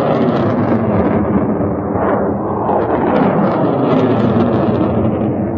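Loud, steady rushing rumble of rocket motors from a salvo of rockets climbing away, with a few brief sharper bursts in it.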